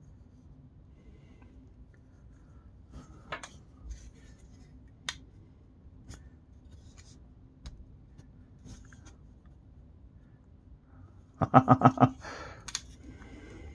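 Plastic parts of an Acid Rain Marine Waterstrider toy mech being handled and moved: scattered faint clicks and taps, then a quick run of about eight loud clicks near the end as a part is worked through its joint.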